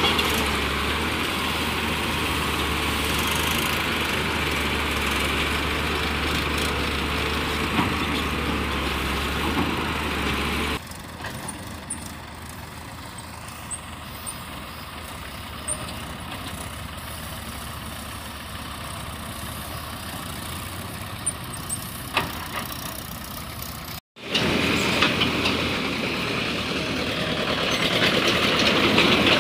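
Diesel engines of an excavator and tractors running. First comes a loud, steady engine close by with a deep hum. About 11 seconds in it cuts to quieter, more distant tractor engines. Near the end, tractors hauling loaded trolleys pass close and the engine noise grows louder.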